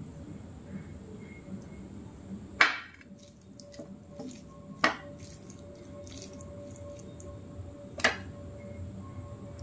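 Hand mixing rice with mutton curry and gravy on a plate: soft squishing, with three sharp wet smacks a couple of seconds apart.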